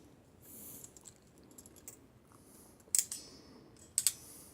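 Hilitchi HS-30J ratcheting crimping pliers clicking as the handles are squeezed to crimp a terminal onto wire: a soft rustle about half a second in, then sharp ratchet clicks about three seconds and four seconds in.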